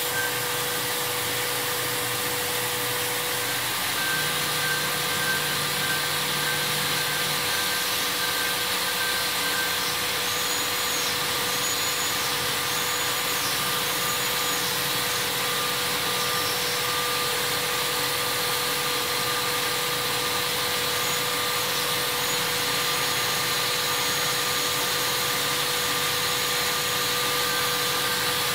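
Röders RXU 1000 DSH machining centre running a cutting cycle: a steady hiss of spindle and cutting noise with a few steady whining tones underneath. Through the middle, a high whine comes and goes in short stretches.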